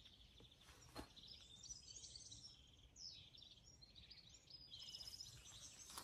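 Small songbirds singing faintly: short high twittering phrases and chirps, with a quick falling whistle about three seconds in.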